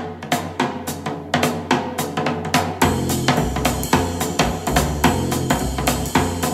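A music track with a drum kit beat of kick and snare, played through a Yamaha HS7 studio monitor speaker and recorded by a microphone; a deep bass line grows stronger about three seconds in.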